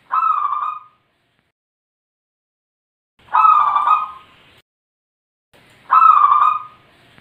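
Zebra dove (perkutut) cooing: three short, wavering calls about three seconds apart, each lasting under a second.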